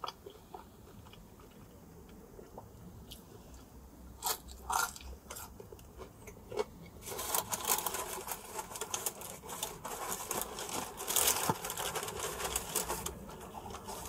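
A person biting into and chewing pepperoni pizza close to the microphone. There are a couple of sharp bites about four seconds in, then dense crunching from about seven seconds in that eases off near the end.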